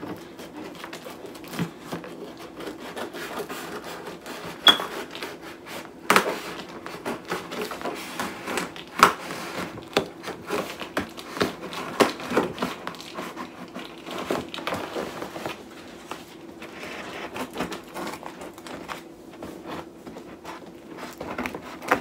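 Scissors cutting and sawing through packing tape on a cardboard box, with the tape crackling and the cardboard rustling in a busy run of irregular clicks. A few sharper snaps stand out.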